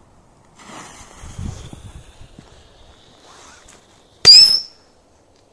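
A small whistling firecracker rocket is lit with a lighter and its fuse burns. About four seconds in, the rocket shoots off with a short, very loud, high whistle that bends in pitch.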